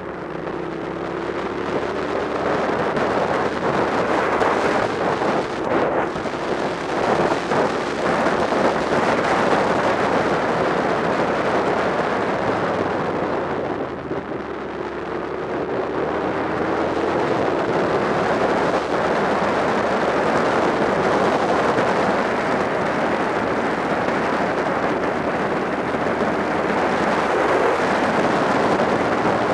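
Wind rushing over a motorcycle-mounted microphone at road speed, with the motorcycle's engine running underneath. The engine note rises slowly in pitch twice, near the start and about halfway, as the bike accelerates.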